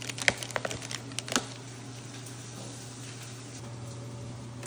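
A few light clicks and taps in the first second and a half, then only a steady low hum.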